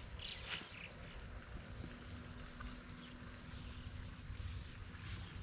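Quiet outdoor ambience: a low wind rumble with a sharp click about half a second in and a few faint bird chirps.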